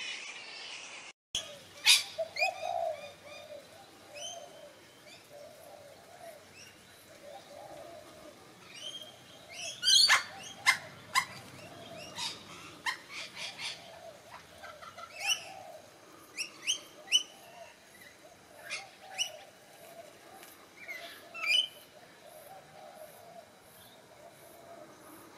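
Birds chirping in short, sharp, high calls, some in quick runs, over a soft low call that repeats underneath. The first second is a steady hiss that cuts off abruptly.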